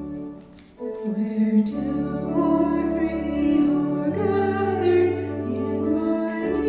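Church organ playing slow, sustained chords over held low bass notes. One chord dies away, and just under a second in a new phrase begins.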